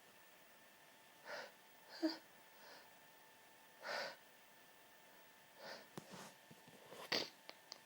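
Short, faint, noisy breaths and sniffs from a person with hayfever, about seven catches spaced a second or so apart: the gasping build-up before a sneeze.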